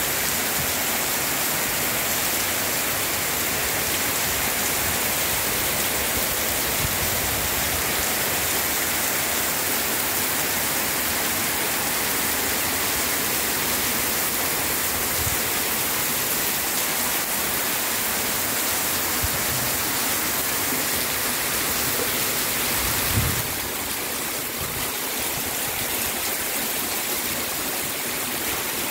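Heavy rain pouring down onto wet paving and puddles: a dense, steady hiss of downpour, dropping slightly in level about three-quarters of the way through.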